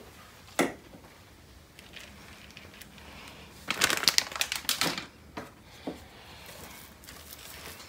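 Shredded cheddar cheese being tipped from its container into a plastic mixing bowl of biscuit dough, heard as a burst of crinkly rustling and crackling lasting about a second near the middle, with a few lighter ticks after. A single sharp click comes about half a second in.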